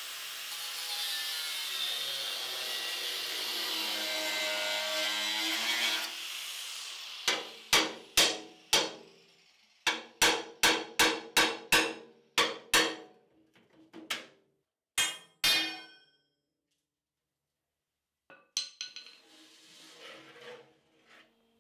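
An angle grinder cutting steel for about six seconds, grinding through the tack welds on temporary chassis braces. Then a hammer strikes the steel chassis in quick runs, around fifteen sharp ringing blows knocking the braces off, followed by a few faint clatters.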